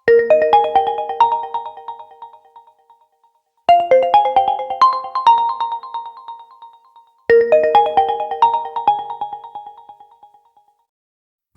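A ColorOS 12.1 phone ringtone from an OPPO A16: a short melody of quick keyboard-like notes that ring and fade, played three times, about three and a half seconds apart.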